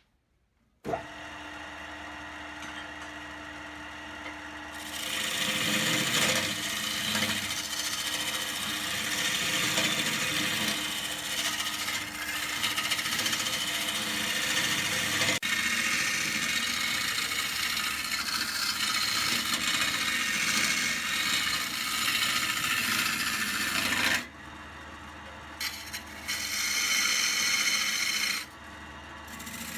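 A wood lathe motor starts about a second in and runs with a steady hum. From about five seconds in, a turning tool cuts the spinning wood with a loud continuous scraping that stops about five seconds before the end. A second short cut follows near the end.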